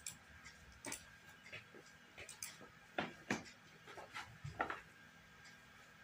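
Mouse clicks and online chess-board piece-move sounds: a scattered run of short, sharp clicks and knocks, two of the loudest close together about three seconds in.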